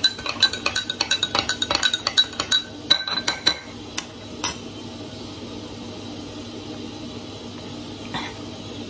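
Metal spoon stirring a drink in a glass, clinking quickly and repeatedly against the glass with a ringing tone for about three and a half seconds. One last clink follows about a second later.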